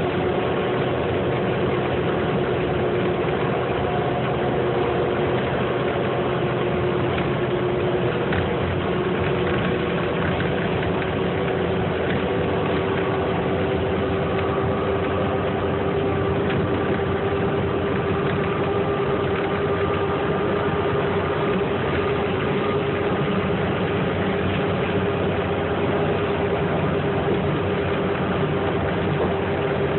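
Inside a 2008 New Flyer C40LFR transit bus cruising at freeway speed: its Cummins Westport ISL-G natural-gas engine and Allison automatic drivetrain run steadily over tyre and road noise. A steady whine sits on top and creeps slowly up in pitch as the bus gathers speed.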